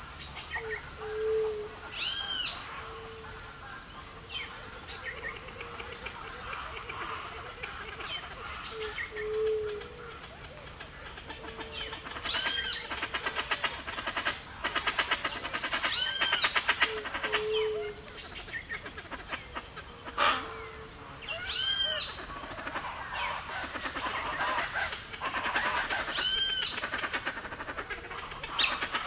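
Wild soundscape of calling birds and other animals. A loud arching call repeats five times, several seconds apart, and short low notes recur every few seconds, all over a dense chorus that pulses rapidly at times.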